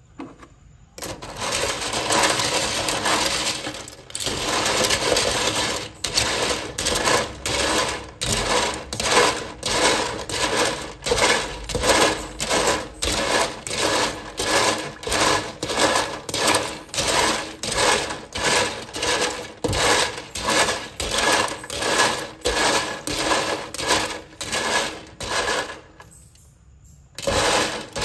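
Blood cockle shells clattering against each other and a stainless steel bowl as they are scrubbed and stirred with a brush in water. The strokes come in a steady rhythm of about two a second and break off briefly near the end.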